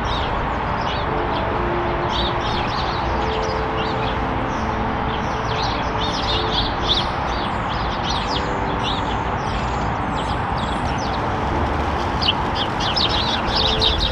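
A flock of house sparrows chirping, many short overlapping chirps without a break. Soft background music with held notes runs underneath.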